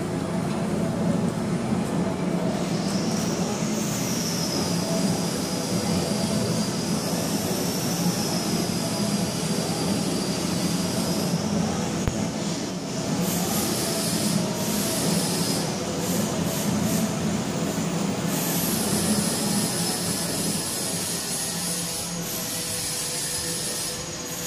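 AP-200 semi-automatic pallet stretch wrapping machine running as it wraps a crate: a steady motor and turntable hum with a high wavering whine that comes and goes.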